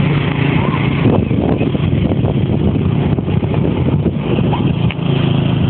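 An engine running steadily at an even pitch, with rough noise over it for the middle few seconds.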